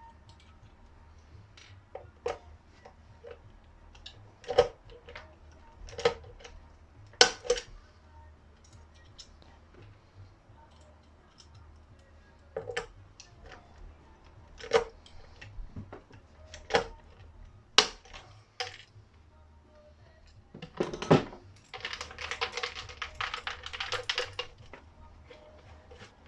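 Workshop handling noise: a dozen or so sharp knocks and clicks of hard objects being picked up and set down, then near the end a brief whirring burst of about two and a half seconds with a buzzing tone through it.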